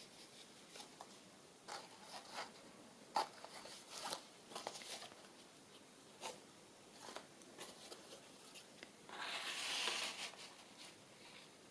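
Faint rustling and light taps of paper and card being handled, with a longer soft swish about nine seconds in as a card is slid along paper.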